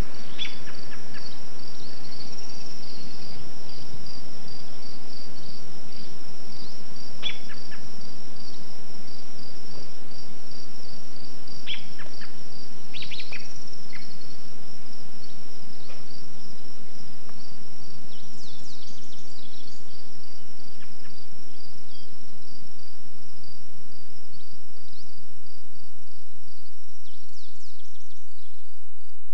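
Crickets chirping in a steady, evenly pulsed chorus over a constant hiss, with a few short bird chirps now and then, the last cluster near the end. It cuts off abruptly at the end.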